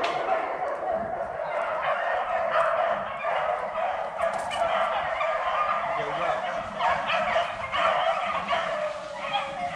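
A pack of beagles baying in chorus, many overlapping voices, as the hounds run a rabbit on its scent trail.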